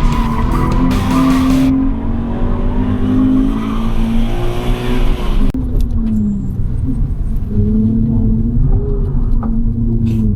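Race car engine heard onboard, its pitch climbing and dropping repeatedly as it revs up and comes off the throttle. A bright hissing layer over it cuts off abruptly a little under two seconds in.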